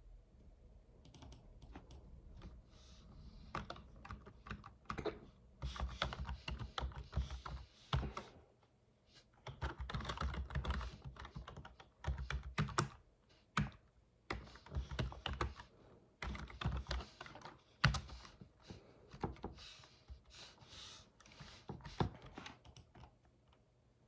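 Typing on a computer keyboard: rapid key clicks in irregular bursts with short pauses, and one sharper single knock about eighteen seconds in.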